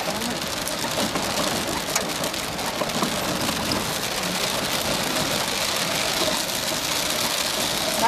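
Heavy rain pelting a vehicle's windscreen: a steady hiss made of many small, rapid drop ticks.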